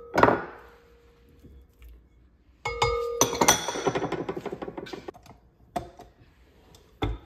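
A spatula tapping and scraping against the glass bowl of a stand mixer: a knock, then a cluster of quick clinks that set the glass bowl ringing, followed by a rattling scrape. A couple of single knocks come near the end, as the mixer's beater is fitted.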